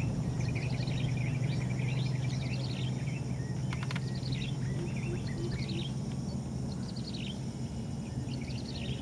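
Small birds chirping in repeated quick series, over a steady low hum.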